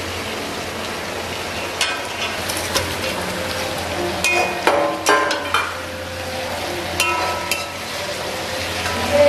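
Steady sizzling in a metal kadai as fried tapioca balls are tossed with onion, capsicum and sauce. A metal spatula clinks and scrapes against the pan several times, most busily about four to five and a half seconds in.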